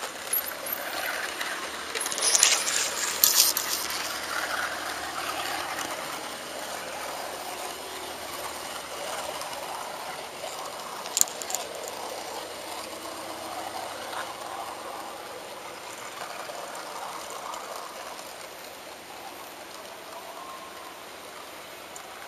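HO-scale model train running on its track, heard from the camera-carrying locomotive: a steady metallic rattle of small wheels on rails, with sharp clicks as it rolls over points and rail joints, several bunched a few seconds in and one about eleven seconds in. It grows gradually quieter as the train slows into the station.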